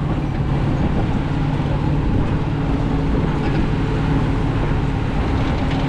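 Hunting buggy's engine running steadily under way, a constant drone with a low rumble.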